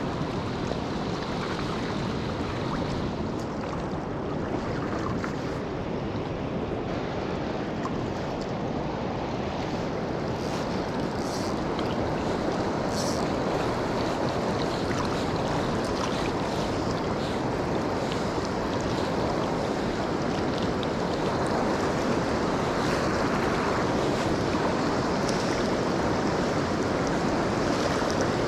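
Steady rushing of a shallow river rapid running over rocks, growing gradually a little louder.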